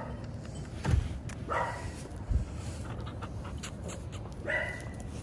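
A dog giving two short barks, about one and a half seconds in and near the end, with a couple of low thumps in between.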